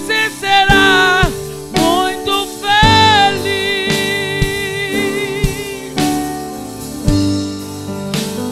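A woman singing a slow gospel worship song with vibrato, holding one long note before her voice stops about six seconds in. A live band of keyboard, electric bass and drums plays along and carries on after she stops.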